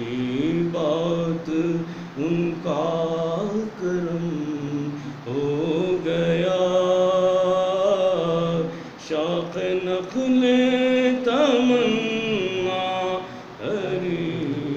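A man singing a naat, an Urdu devotional poem in praise of the Prophet, solo in a chanting style. He draws out long held notes that bend and glide, with short pauses between phrases.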